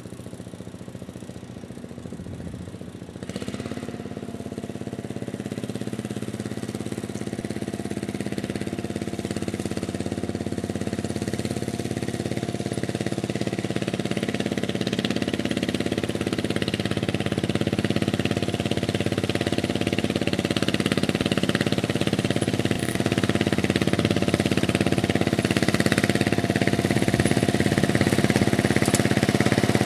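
16-horsepower engine of a 1972 Sears Suburban SS15 garden tractor running steadily at a low speed of about 1000 rpm while it hauls a 920 lb water-filled steel lawn roller up a steep slope. The engine grows steadily louder from about three seconds in as the tractor comes closer.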